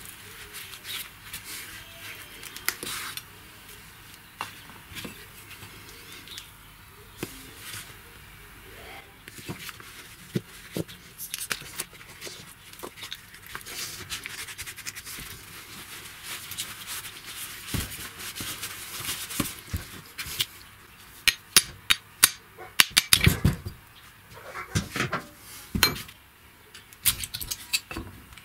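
Hand work on an old CV joint: metal tools clinking, tapping and scraping on the joint and its boot clamp, with a run of louder knocks in the second half.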